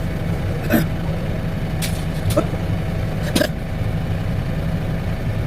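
Heavy excavator engine running steadily at a low rumble, with a few sharp knocks of demolition work cutting through it.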